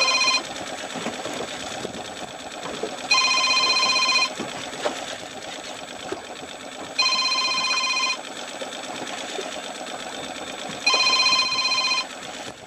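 An electronic alarm sounds a long beep of about a second, repeating every four seconds or so. Under it runs a steady mechanical running sound.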